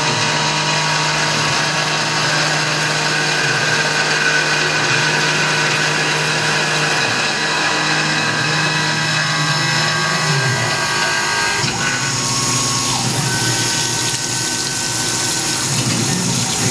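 Tormach PCNC 1100 CNC mill cutting aluminium with a roughing end mill under flood coolant: a steady spindle and cutting whine over coolant splashing. About two-thirds of the way through the sound shifts and changes character, as a slimmer end mill takes over the cut.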